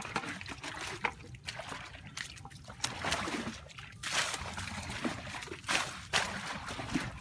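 Muddy water scooped up in a plastic bucket and flung out in repeated splashes, bailing a shallow pool; the splashes come every second or two with trickling in between.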